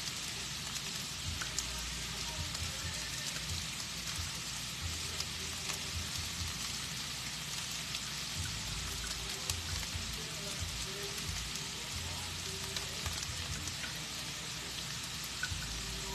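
Shrimp and cauliflower rice frying in a hot pan: a steady sizzling hiss with fine crackles.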